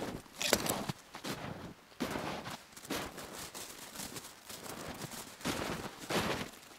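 Footsteps crunching through deep snow, uneven crunches roughly one or two a second.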